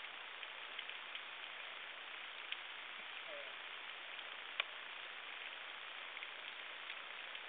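Underwater reef ambience: a steady crackling hiss with scattered sharp clicks, typical of snapping shrimp, the loudest click a little past the middle.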